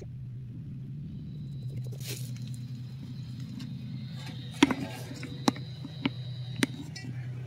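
Handling noise as the camera is picked up and carried over grass: a few sharp knocks and clicks over a steady low hum.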